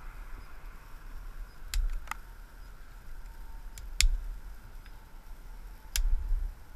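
Several sharp snaps and clicks, about six spread over a few seconds, as a hand breaks and handles small dry twigs on an overhanging tree branch. The loudest come about four and six seconds in, with a low rumble of branch handling alongside them.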